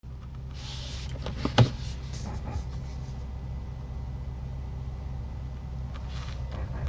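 Steady low hum in the cabin of a Cadillac ELR, with one sharp click about one and a half seconds in as the car is shifted into reverse.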